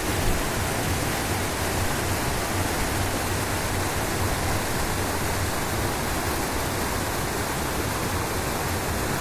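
River rapids rushing over rocks: a steady, unbroken roar of white water.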